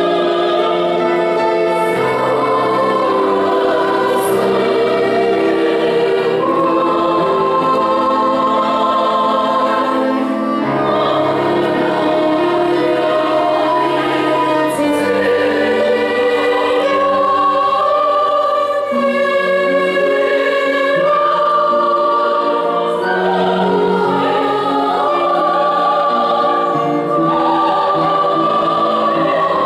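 Classical performance: a woman sings in operatic style in long held notes over a string ensemble with cello.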